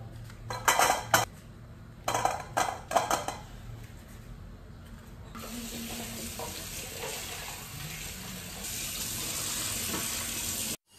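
A few knocks and clinks as a stainless steel bowl is handled, then a tap running into the steel bowl and sink from about five seconds in as karvanda berries are rinsed, the flow louder near the end.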